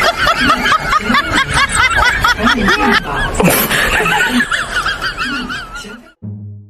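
High-pitched laughter, many overlapping giggles and snickers, cutting off abruptly about six seconds in. A low steady tone starts just after.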